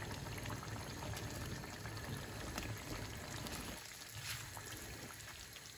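Chicken and pea curry simmering quietly in a wok over a low flame, a steady soft sizzle and bubble of the sauce. A short scrape of the spatula in the pan comes about four seconds in.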